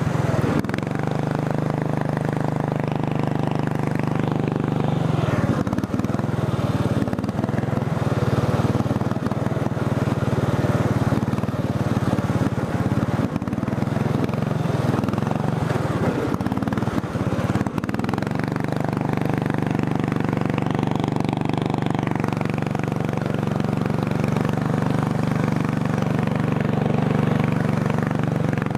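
400cc racing lawn mower engine running: steady for about the first five seconds, then rising and falling under throttle until about eighteen seconds in, then steady again. The owner says its carburetor leaks gas and is not tuned right.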